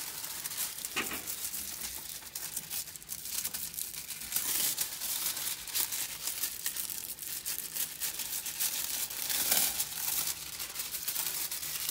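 Thin transfer foil leaf crinkling and tearing as it is handled and pressed onto a tacky glued surface: a dense run of small crackles, with louder rustling bursts about four and nine seconds in.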